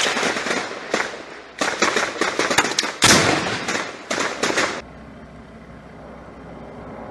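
A rapid series of loud bangs with crackling between them, each bang trailing off in an echo. The volley stops about five seconds in.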